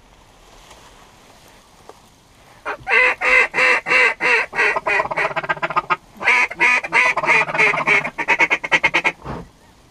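Hand-held mallard duck call blown by a hunter to turn a drake mallard: two loud runs of quacks, the second quickening into a fast chatter near the end.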